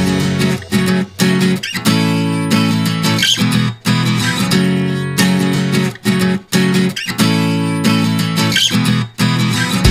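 Background music: strummed acoustic guitar playing a series of chords.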